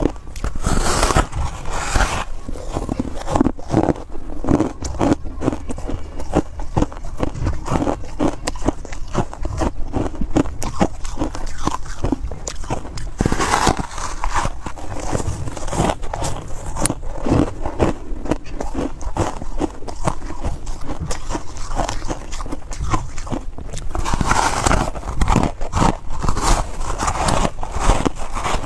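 Close-miked biting and chewing of a block of coloured foam ice: a continuous stream of fine crunching and crackling, with louder bites about a second in, near the middle and near the end.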